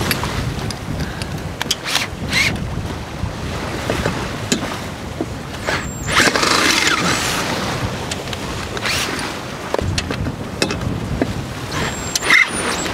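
Wind buffeting the microphone and sea washing past a sailboat's hull, with a cordless drill running as it bores through a metal whisker pole, loudest about six seconds in.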